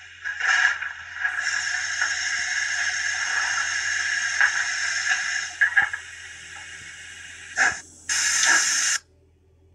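Sound-fitted model steam locomotive's speaker playing cylinder-drain steam hiss, synchronised with puffs of vapour from the model's cylinder drains and chimney. A short hiss comes first, then a long steady hiss of several seconds. After a quieter spell come two more short blasts, and the last cuts off suddenly.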